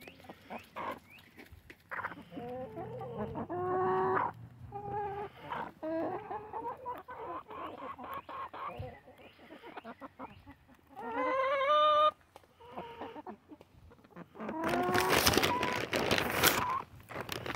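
A flock of backyard hens clucking and calling in short rising-and-falling notes while pecking sunflower seeds from an open hand, with quick sharp taps of beaks. Near the end comes a louder, harsher outburst of squawking.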